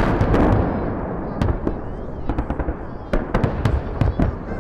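Fireworks salute going off: a run of sharp bangs and crackling pops over a continuous low rumble, thickest at the start and again about three seconds in.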